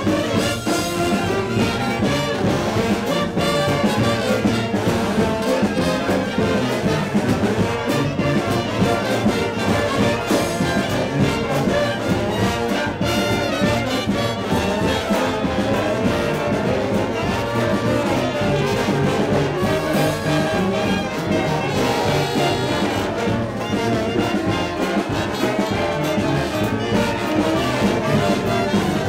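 Brass band playing, with trombones and trumpets, continuously.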